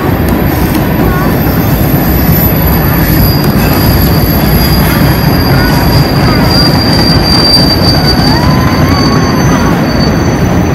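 Freight train of empty centerbeam flatcars rolling past close by: a loud, steady rumble of wheels on rail, with a thin, steady high-pitched squeal over it through the middle of the passage.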